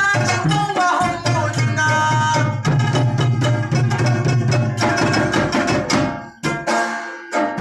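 Live Pashto folk music for tappay: quick, steady hand-drum strokes under a sustained melody, with a short break about six seconds in.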